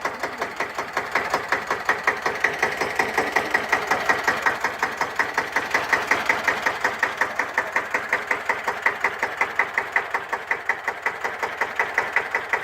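Deutz F1L612's freshly overhauled single-cylinder air-cooled diesel idling, with a steady, even beat of firing strokes.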